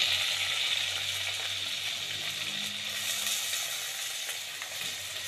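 Vegetables sizzling in hot oil in a pan over a wood fire, just after being tipped in; the hissing sizzle slowly dies down.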